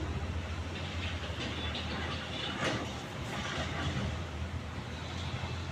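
A machine running with a steady low hum, with scattered clicks and rattles over it.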